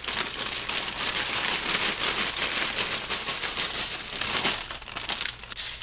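Dry extra-broad egg noodles pouring out of their bag into a skillet of meatballs: a dense rattling patter of many small pasta pieces landing, thinning out over the last second.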